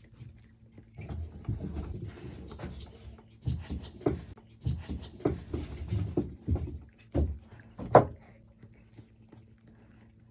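A cat lapping water from a cat water fountain: a run of short, irregular wet laps, roughly two a second, stopping about eight seconds in. The last lap is the loudest.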